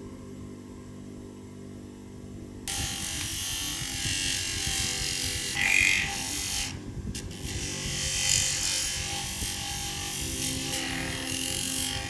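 Soft background music with held tones, then about two and a half seconds in a sudden cut to a harsh, steady grinding noise of a small power tool working the metal of a Zippo lighter, which breaks off briefly midway.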